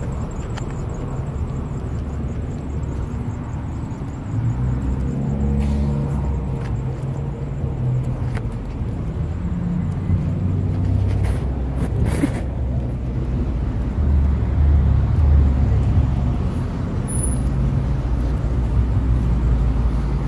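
Parking-lot ambience: a steady low rumble of cars and road traffic, louder from about four seconds in.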